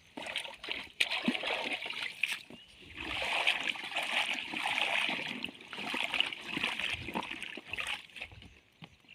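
Shallow paddy-field water being splashed and sloshed in irregular bursts during traditional hand fishing.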